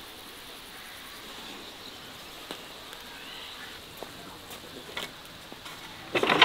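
Outdoor rural ambience: a steady hiss with faint chirping and a few small clicks, then a short, louder clatter about six seconds in.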